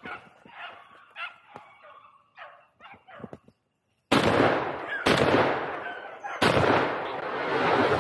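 Shotgun fired three times, about four, five and six and a half seconds in, each loud blast echoing and dying away over about a second. Before the shots, rustling in dry leaves and a few faint dog yelps.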